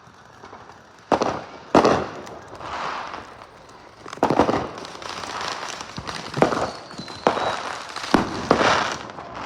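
Fireworks going off: a string of sharp bangs, the first about a second in, with crackling and hissing between them.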